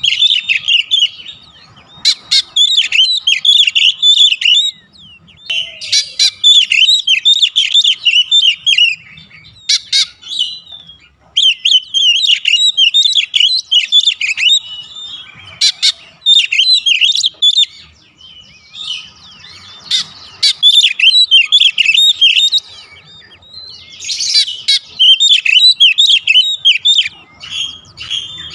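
Oriental magpie-robin in full song: fast runs of high, varied notes in loud phrases of a second or two, broken by short pauses.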